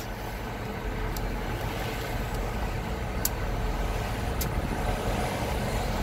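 Steady low rumble of an engine idling, with a few faint clicks.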